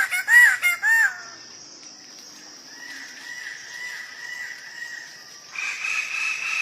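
Bird calls: a rapid series of clear, arched call notes, about three a second, stops about a second in. A steady high buzz with faint warbling bird notes follows. About five and a half seconds in, the sound switches abruptly to a different steady, higher-pitched call.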